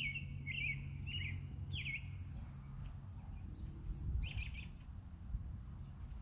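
A bird chirping: four short chirps in the first two seconds, then after a pause a higher, busier burst of notes about four seconds in. A low steady rumble runs underneath.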